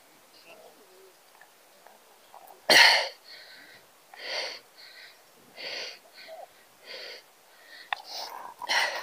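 A person's breath sounds close to the microphone: one loud sudden burst about three seconds in, then a run of softer, wheezing breaths.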